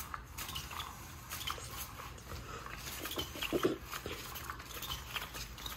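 A dog giving one short whine about three and a half seconds in, over faint scattered clicks and shuffling on a wooden floor.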